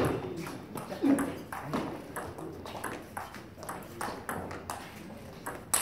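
Table tennis rally: the ball clicking off the rackets and bouncing on the table in quick, irregular succession, with a sharp hit right at the start and another near the end.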